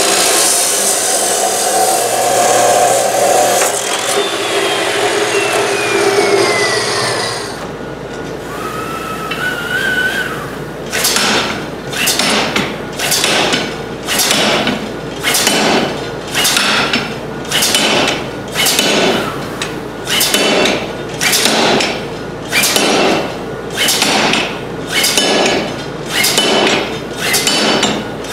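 Abrasive chop saw cutting through a steel bar, its motor winding down with a falling whine after about seven seconds. After a short gap, a power hammer strikes hot steel in a steady rhythm, about four blows every three seconds.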